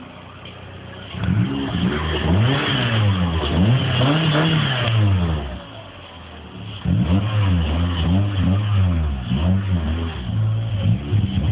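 VW Polo 6N's 1.4 8-valve four-cylinder petrol engine idling, then revved in repeated blips through a straight-through stainless steel cat-back exhaust with 1 3/4 inch pipe. A run of revs starts about a second in and settles back to idle around the middle, then a second run of quicker blips follows.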